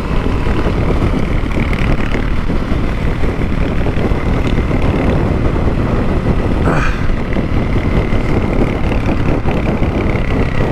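Honda CRF250L dual-sport motorcycle's single-cylinder engine running steadily at cruising speed, mixed with heavy wind rumble on the camera microphone.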